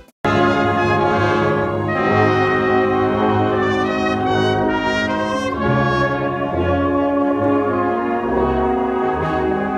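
Background music: after a brief cut to silence at the very start, a new piece begins with long held chords in a brass-like orchestral sound.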